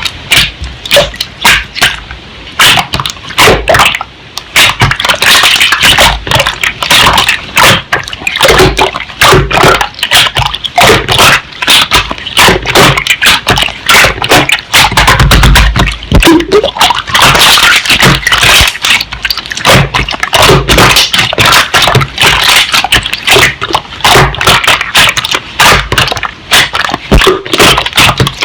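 Slime being squished and pressed by hand: a dense, irregular stream of loud wet clicks, pops and crackles.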